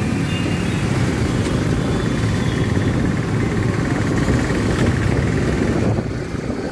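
Motorcycle running at riding speed, heard from the rider's seat, with the steady rush of the ride; it drops off about six seconds in.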